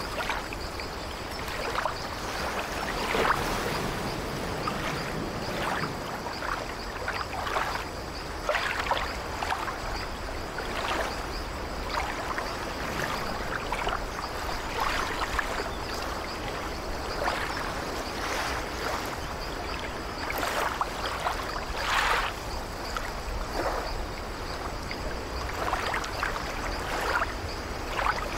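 Small ocean waves lapping and washing at the shoreline: a steady wash of water broken by frequent short, irregular splashes.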